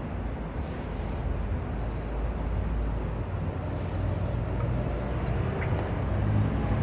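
Steady low rumble of outdoor background noise, growing a little louder about four seconds in.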